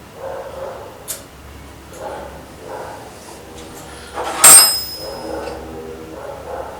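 Hand handling noise of a check-valve fitting being worked onto a stiff compressor hose: scattered rubbing and scraping, with one loud, sharp metallic click that rings briefly about four and a half seconds in.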